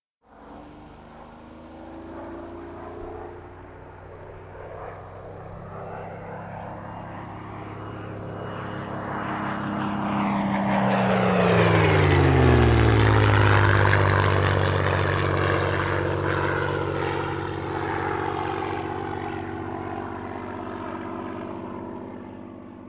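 An airplane flying past. Its engine sound builds for about ten seconds, peaks about halfway through with the pitch dropping as it passes, then fades slowly away.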